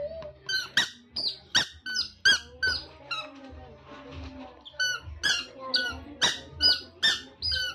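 A child's squeaker sounding over and over: short, high squeaks, each a quick chirp, coming in runs of about two a second with a pause of about two seconds in the middle.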